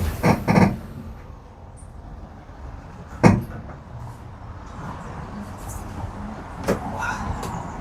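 Vintage tram running, a steady low rumble broken by sharp clunks, the loudest about three seconds in.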